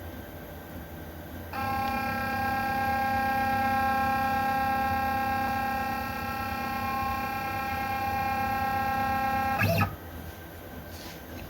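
Genmitsu Prover XL CNC router's motors running with a steady, even-pitched whine for about eight seconds, then stopping abruptly with a click.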